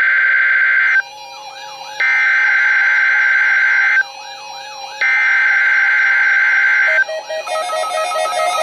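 NOAA Weather Radio's Emergency Alert System SAME header, the digital data tones that open a Required Weekly Test, sent three times. Each burst is a loud, harsh electronic warble lasting about two seconds, with roughly a second between bursts. After the third burst ends, about seven seconds in, quieter music with stepping notes takes over.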